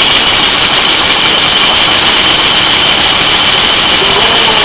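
Brass twin-cylinder model steam engine running on compressed air from a shop air hose, a loud steady hiss and rush of air exhausting from the cylinders.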